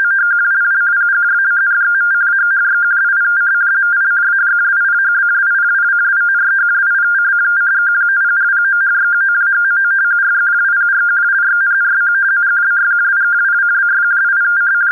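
RTTY data transmission: 50-baud Baudot code sent as audio frequency-shift keying, two high tones 170 Hz apart around 1500 Hz switching back and forth rapidly at an even level. It carries a text message meant to be decoded with Minimodem or fldigi.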